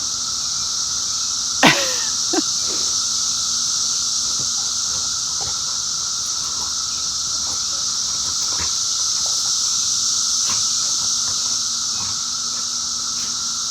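Dense chorus of 17-year periodical cicadas: a steady high-pitched drone with a fainter lower hum beneath it. A brief sharp sound cuts through about a second and a half in.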